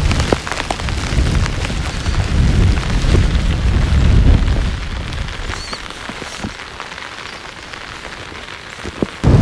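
Heavy rain falling and pattering, with low rumbling gusts of wind on the microphone that ease off about halfway through.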